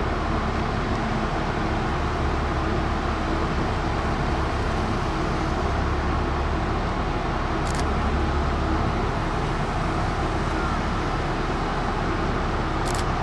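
Steady low drone of a large car ferry's engines, a constant hum under a broad rushing noise. Two brief high hisses come about eight and thirteen seconds in.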